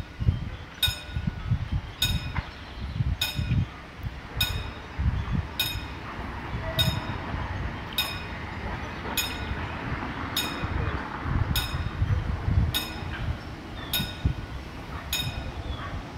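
Railway level-crossing warning bell striking at an even pace, about one ringing strike every 1.2 seconds, signalling a train approaching the crossing.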